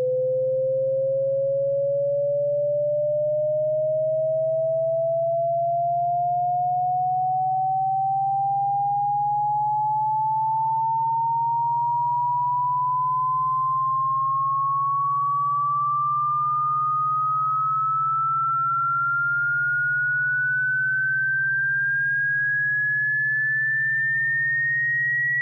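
A single pure electronic tone gliding slowly and steadily upward in pitch, from a mid whistle to a high one, over a faint steady low hum; it is played as a cat-repellent sound.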